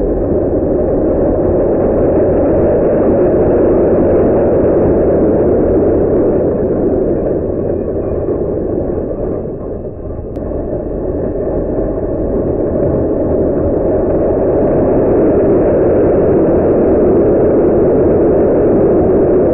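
Steady whirring hum of HO-scale slot car trucks' small electric motors and wheels running on plastic slot track, picked up close by a camera riding on the track, with a brief dip about ten seconds in.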